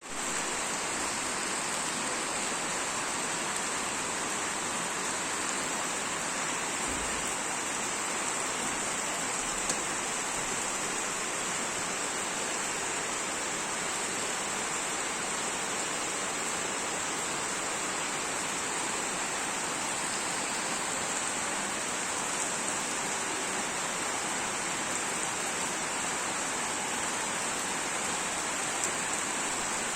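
Steady rain falling, an even hiss of drops on the street surfaces.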